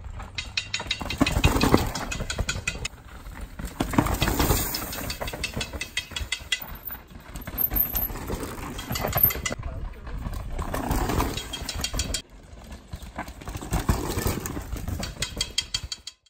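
Downhill mountain bikes passing one after another over rocks and loose dirt: each pass swells up as tyres crunch and skid and the bike rattles, with the fast ticking buzz of freewheel hubs as riders coast. The sound cuts off abruptly to silence just before the end.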